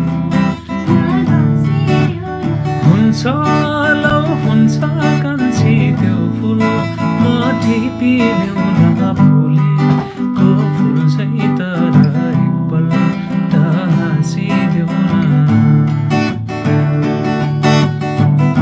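Acoustic guitar strummed in a steady pattern, with a man singing over it in phrases.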